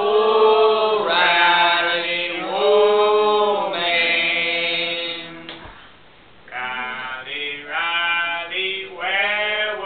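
A man singing unaccompanied in long, held notes, with a short break a little past halfway through.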